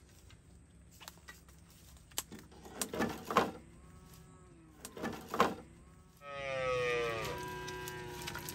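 Dry sticks rustling and clacking in two bursts as they are pulled from a woodpile, then a cow moos once about six seconds in, the call falling in pitch and then holding for a couple of seconds.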